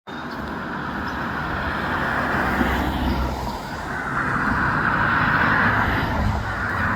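Steady outdoor rushing noise with a low rumble underneath, swelling slightly about four seconds in; no bird calls stand out.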